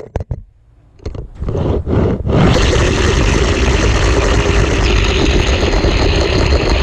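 Plastic wheels of a Hot Wheels Zoom In toy car rolling along orange plastic track, heard loudly from the GoPro riding on the car. A few clicks and knocks in the first two seconds give way to a steady rolling rumble with a faint hum in it.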